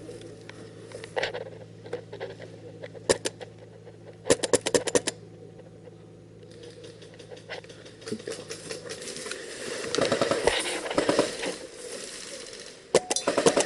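Airsoft guns firing: a single shot about three seconds in, then a rapid string of about seven shots, another single shot, and another quick string near the end.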